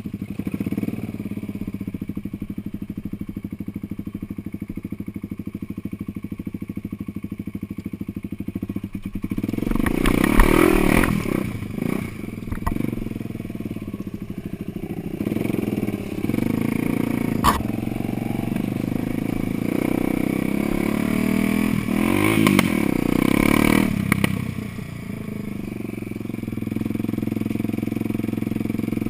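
Off-road vehicle's engine running steadily on a rough trail, rising in level twice as it is given more throttle, with a sharp knock from the vehicle partway through.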